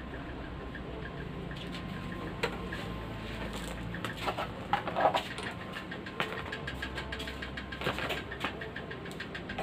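Scattered light clicks and taps of hand work on a motorcycle, a cluster of louder ones about halfway through, over a faint steady low hum.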